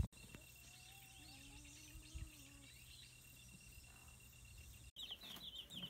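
Faint outdoor ambience: insects chirping in a steady pulsing line, with a few faint bird calls. About five seconds in it cuts to the loud, dense peeping of a brood of broiler chicks.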